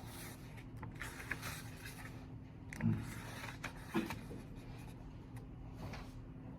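Quiet library room ambience: a steady low hum with faint rustling, and two soft thumps, about three and four seconds in.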